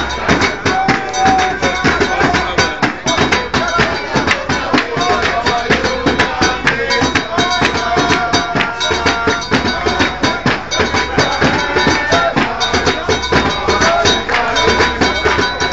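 A protesting crowd shouting over a fast, steady rhythm of cowbell-like metal strikes.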